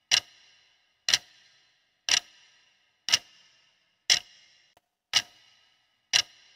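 Countdown timer sound effect ticking once a second, each tick sharp with a short ringing tail.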